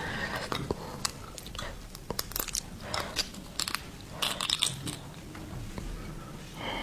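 Close-miked chewing and biting of seafood, with irregular wet mouth clicks and small crunches.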